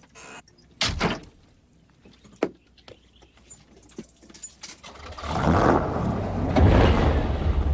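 A car door slams shut about a second in, followed by a few small clicks; from about five seconds in, the V8 engines of vintage Chevrolet muscle cars run loud.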